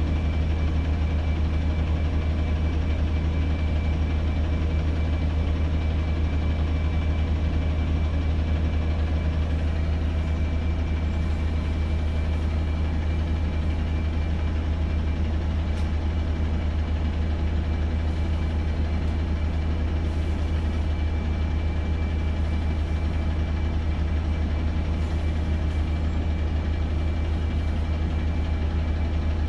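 Alexander Dennis Enviro200 MMC bus's diesel engine idling steadily, heard from inside the saloon, with a deep steady hum and a thin steady high whine above it.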